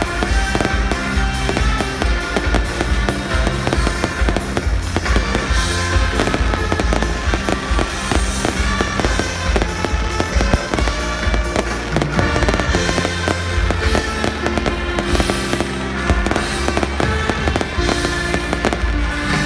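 Aerial fireworks bursting in quick succession, many overlapping bangs and crackles, over loud music with a heavy bass.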